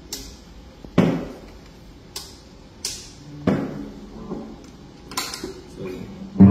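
Handling noise from a Yamaha Revstar electric guitar plugged into an amp as it is set up to play: about six sharp clicks and knocks, a second or so apart, each ringing briefly over a low amp hum. A loud chord is struck just at the end.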